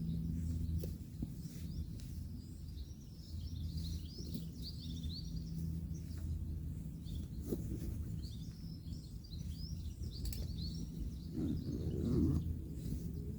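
Small birds chirping over a steady low hum of distant road traffic, with scattered faint clicks and a brief louder low sound about twelve seconds in.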